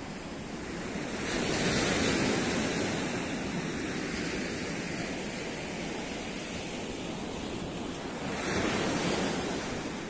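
Surf breaking on a sandy Black Sea beach: a steady wash that swells twice, about two seconds in and again near the end, with wind rumbling on the microphone.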